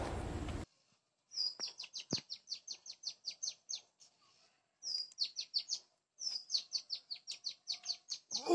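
A small bird singing three phrases of quick, evenly spaced high descending notes, about six a second, each phrase opening with a longer note and lasting one to two and a half seconds. A brief rustling noise cuts off abruptly under a second in.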